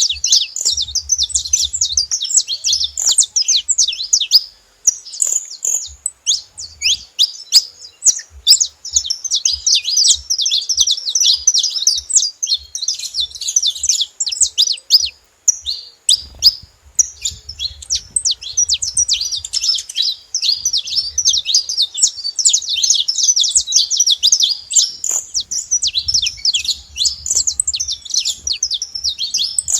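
Saffron finch singing in long, fast runs of high chirping notes with only brief pauses.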